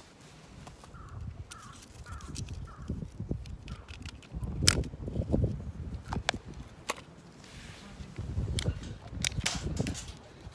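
Wood campfire crackling, with irregular sharp pops, while gusts of wind rumble on the microphone. The wind is strong and the fire is burning well.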